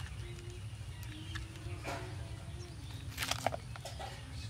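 Thin plastic cup crackling and clicking as a frozen ice pop is worked loose and pulled out by its stick, a short cluster of clicks about three seconds in. Faint bird chirps in the background.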